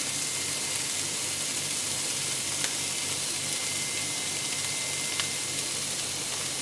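Broccoli frying in a non-stick pan: a steady sizzle, with two faint light clicks about two and a half and five seconds in.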